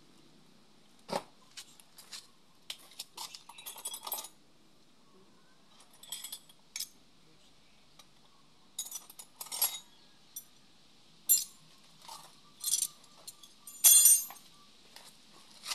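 Metal hand tools and parts clinking and rattling as they are picked up and set down, in scattered short clatters with quiet between; the loudest clatter comes near the end.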